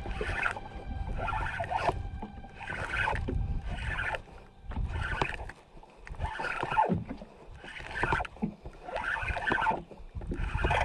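Ryobi Virtus 7000 spinning reel being cranked to retrieve a hooked fish, with a swishing noise repeating about once a second as the handle turns, over a low wind-like rumble.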